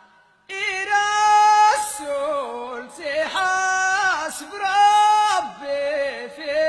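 A solo voice chanting Amazigh Ahwash sung poetry: several phrases of long held notes that slide between pitches, starting about half a second in.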